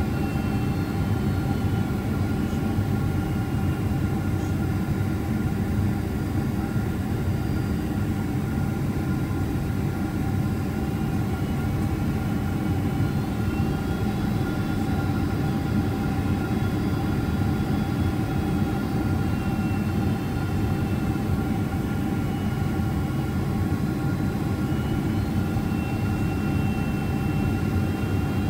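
Steady cabin noise inside a Boeing 767-400ER on approach: a low rumble of airflow and the General Electric CF6-80C2 turbofans, with a couple of steady tones over it.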